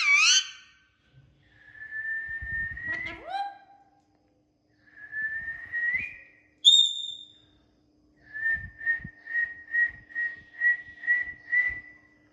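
Pet parrot whistling: a couple of drawn-out whistles that rise at the end, a short higher note, then a run of about ten quick repeated whistles on one pitch.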